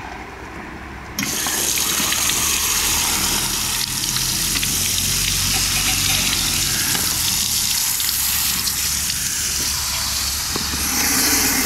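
Water rushing from a coin-operated service-point tap through a garden hose. It starts suddenly about a second in, once the coin has released the supply, and runs on as a steady hiss.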